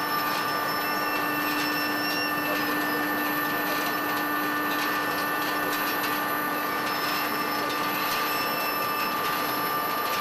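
Date-processing machinery running steadily: an even mechanical hum with several constant tones and faint, irregular ticking.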